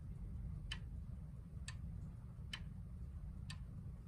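Hermle FB36 triple-chime, chain-driven grandfather clock movement ticking steadily, about one tick a second, over a low steady hum.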